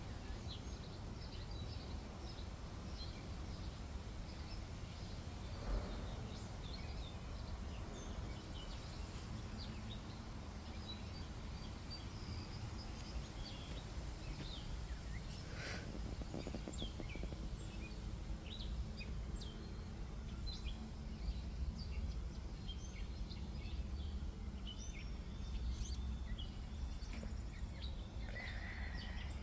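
Outdoor garden ambience: scattered bird chirps throughout, over a low steady rumble, with one brief knock about six seconds in.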